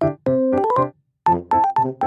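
Background music: a light, bouncy keyboard tune of short, separate notes, pausing briefly about a second in.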